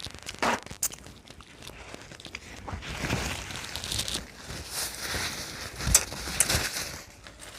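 Crinkling and rustling of food packaging, building up over several seconds, with a few sharp clicks and knocks near the end.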